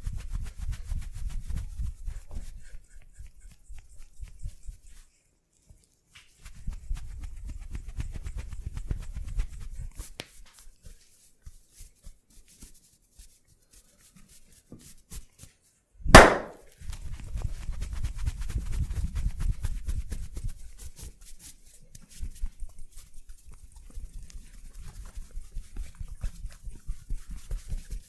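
Hands working over the body in a massage: runs of fast tapping and slapping on skin, with quieter pauses between them. About halfway through comes one loud, sharp crack, the loudest sound here.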